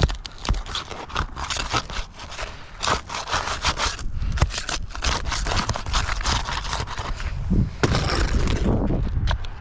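Scraping and rustling of asphalt shingles being worked by hand on a roof, with many scattered clicks and knocks.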